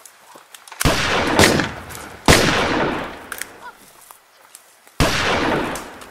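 Three loud gunshots, each a sudden crack with a long echoing tail. The first comes about a second in, the second about a second and a half later, and the last near the end.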